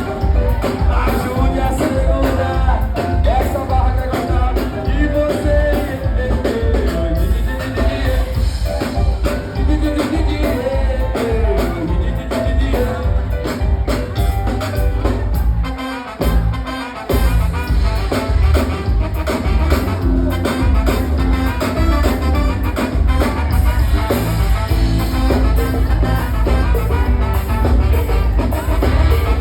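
A band playing a Brazilian pop cover with drum kit and a heavy bass beat, with some singing over it. The bass drops out briefly about halfway through, then the beat comes back in.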